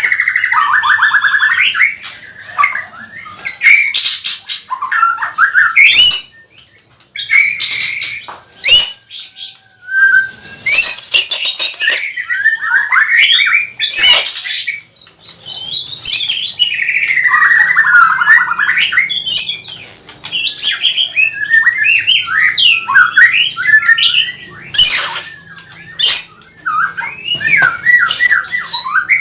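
White-rumped shama singing loudly and continuously. Varied whistled phrases, swooping notes and fast trills are broken by several sharp, dry clicking notes: the 'cekrek' calls of a bird in full song.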